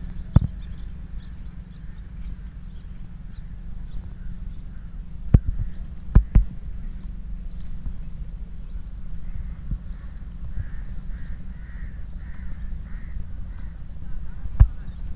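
Outdoor creekside ambience: insects chirping in a steady, high, pulsing pattern over a low rumble, with a few sharp knocks. In the second half a bird calls repeatedly in short harsh notes, like a crow cawing.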